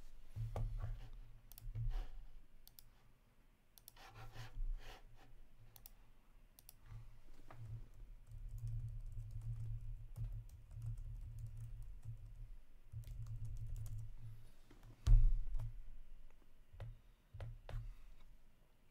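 Typing and clicking on a computer keyboard, irregular and in runs, over low knocks from the desk. A sharper thump about fifteen seconds in is the loudest sound.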